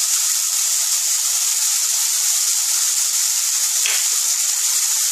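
Chopped onion, tomato, carrot and beans sizzling steadily in hot oil in a nonstick kadai.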